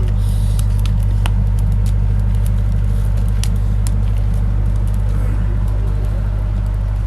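Bonfire crackling, with scattered sharp pops, over a loud steady low rumble.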